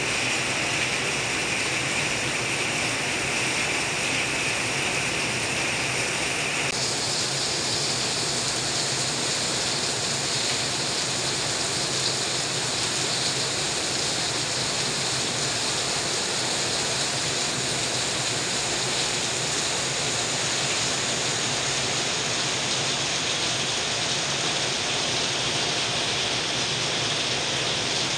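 Heavy rain pouring down, with water streaming off a roof edge, as a steady, even rush. The tone of the rush changes abruptly about seven seconds in, turning brighter.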